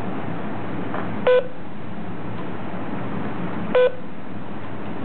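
Fingerprint time-attendance terminal (DIGI-TEK T5) beeping twice, two short single-pitch beeps about two and a half seconds apart over a steady hiss. The beeps acknowledge fingerprint captures during enrollment, each prompting the finger to be lifted from the sensor.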